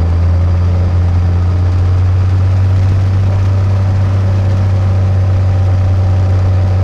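Piper Cherokee Six's Lycoming six-cylinder engine running steadily at low power during its first run-up, heard from inside the cockpit.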